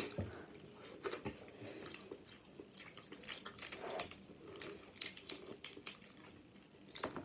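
Boiled crab leg shells being cracked and picked apart by hand, a run of small crackles and snaps, the sharpest about five seconds in and again near the end, with eating sounds between.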